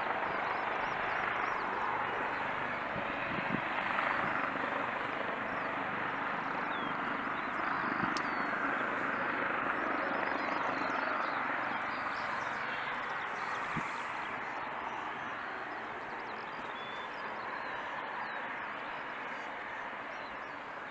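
AgustaWestland AW149 twin-turbine helicopter running on the ground with its rotor turning: a steady turbine and rotor rush that slowly grows quieter over the last several seconds.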